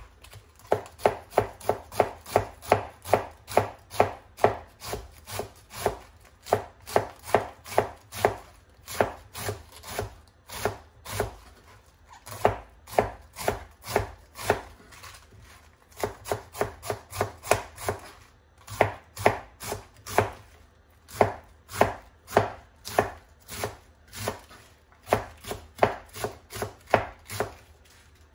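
Kitchen knife shredding cabbage on a plastic cutting board: a steady run of chopping strokes, about three or four a second, broken by a few short pauses.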